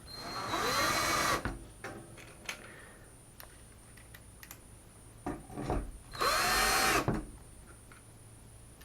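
Drill-driver set to a very low torque, starting screws into drywall anchors: two short runs of about a second each, near the start and about six seconds in, the motor's whine rising and then falling. Light clicks of handling between the runs.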